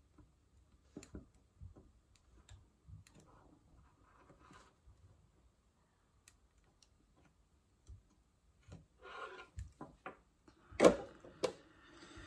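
Faint scattered ticks and small handling noises from soldering tabs onto lithium-ion cells on a wooden bench, then a sharp knock near the end with a smaller click just after it.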